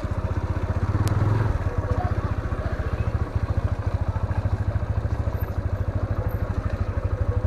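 Motorcycle engine running at low speed with a rapid, even pulsing, briefly louder about a second in as the bike pulls away.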